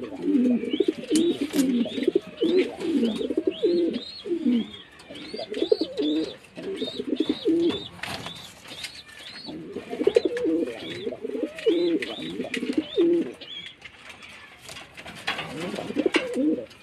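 Pigeons cooing in low, rolling bursts with short pauses between them. A high, thin chirp repeats about twice a second alongside for much of the time.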